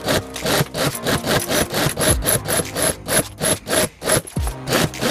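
Industrial sewing machine stitching slowly along a zipper strip to sew in a stiffening wire, its needle strokes going in an even rhythm of about three to four a second.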